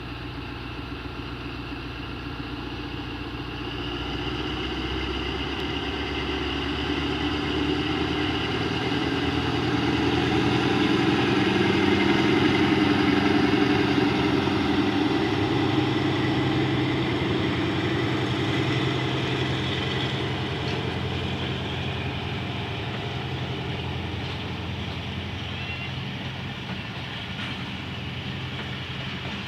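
ZCU-20 diesel-electric locomotive's engine running under load as it picks up, growing louder to a peak about halfway through and then slowly fading.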